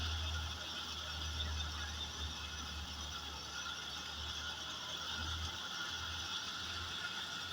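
Tractor-driven threshing machine running steadily: a constant mechanical whirr over a low, even hum.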